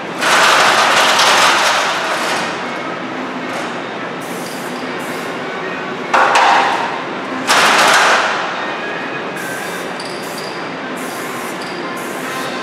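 Aerosol spray-paint can hissing in bursts as letters are sprayed onto a wall: one long burst near the start, two shorter ones around the middle, and a few brief faint puffs later.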